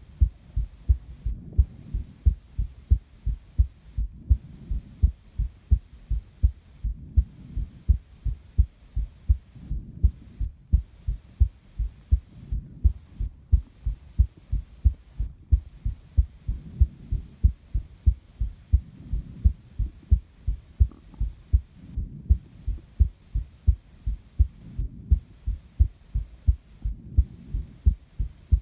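A person's heartbeat recorded at close range, a steady, regular run of low thuds. Under it a soft breathing sound swells and fades every few seconds.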